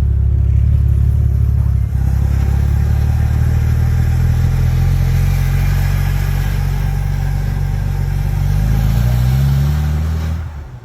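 Aston Martin DB5's 4-litre straight-six engine running loud and steady, then rising in pitch over a couple of seconds near the end before falling away.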